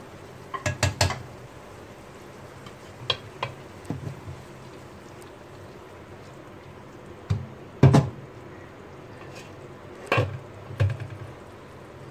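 A slotted spatula knocking against a non-stick cooking pot as koftas are handled in thick masala: scattered sharp clatters in small groups, the loudest about eight seconds in.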